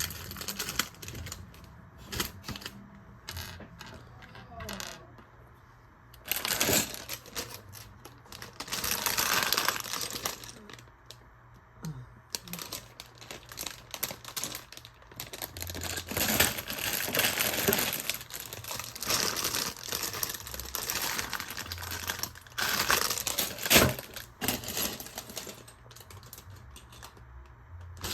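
Small hard plastic pieces, likely Lego bricks, clicking and rattling against each other in irregular bursts as they are rummaged through by hand.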